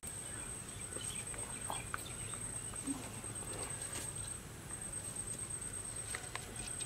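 Cooking oil poured in a thin stream into a hammered aluminium kadai, a faint trickle with small scattered ticks. A steady high-pitched whine runs underneath.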